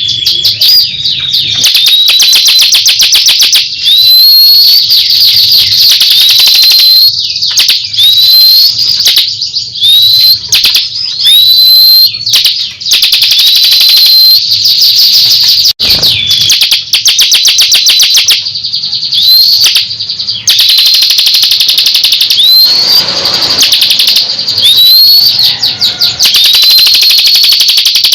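Ciblek kristal, a prinia, singing loudly and without pause. Fast, high trills are broken every second or two by a short upslurred whistle.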